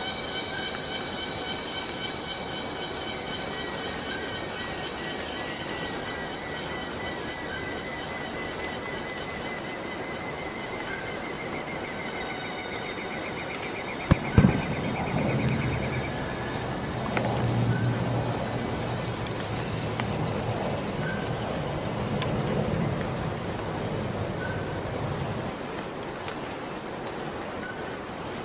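Steady insect chorus, a high, even buzz with several overlapping trills. Two sharp clicks come about halfway through, followed by a low rumble lasting about ten seconds.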